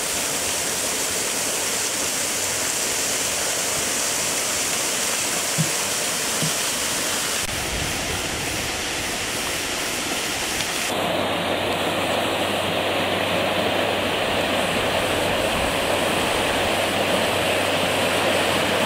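Rushing water: a small waterfall splashing down, then fast water pouring through a channel, a steady noise without a break. Its character changes abruptly about seven and eleven seconds in, and a low steady hum joins it after the second change.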